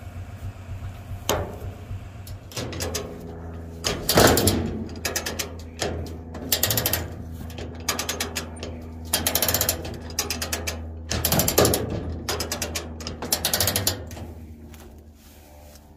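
Ratchet tie-down being cranked tight in repeated short bursts of rapid clicking, over a steady idling engine.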